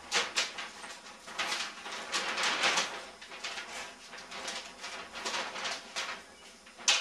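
Large paper map rustling and crackling as it is handled and held up, with two sharp crinkles near the end.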